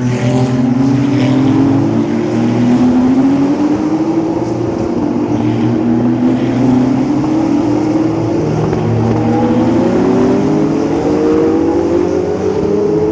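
Race car engines at full throttle, several long rising engine notes overlapping as cars accelerate, one after another.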